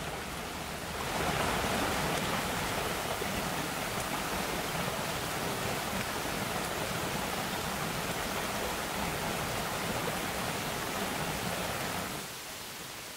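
Shallow creek water running steadily, an even rushing noise. It swells about a second in and drops to a quieter level near the end.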